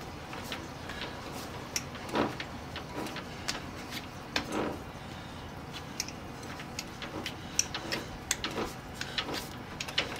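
Light metal clicks, scrapes and a couple of duller knocks, about two and four and a half seconds in, as a band saw's metal pivot bracket is handled and swung on a newly turned steel pivot pin to test its fit.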